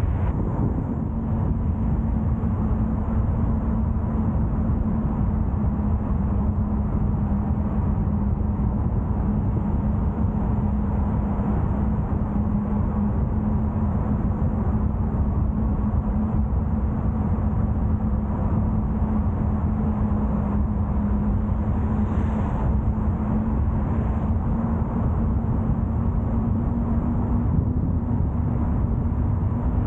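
Car driving at a steady speed: even road and engine rumble with a constant low hum that rises slightly near the end.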